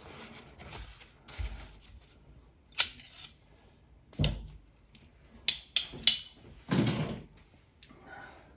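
Handling clatter on a work surface: about six sharp clicks and knocks, a couple of them with a low thud, then a short rustling scrape near the end, as the hot key and nearby things are set down and moved on paper.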